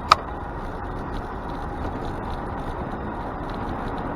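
Steady rush of road traffic and moving-bike noise, with one short, sharp, high click just after the start.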